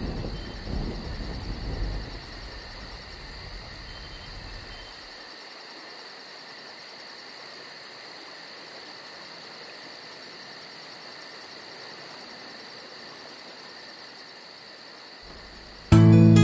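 Faint, steady chirring of insects such as crickets, with a low rumble that dies away over the first two seconds. Acoustic guitar music starts abruptly at the very end.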